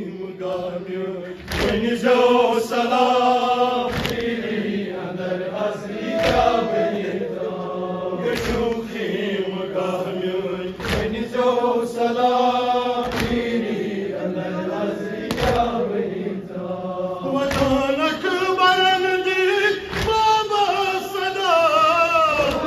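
Men chanting a nauha, a Shia mourning elegy: a lead reciter with a group of male voices joining in. It is set to sharp unison chest-beating (matam), about ten hand slaps evenly spaced a little over two seconds apart.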